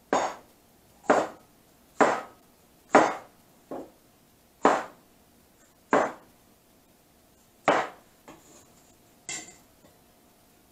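Large kitchen knife chopping a red bell pepper on a plastic cutting board: about nine sharp knocks of the blade on the board, roughly one a second, two of them lighter.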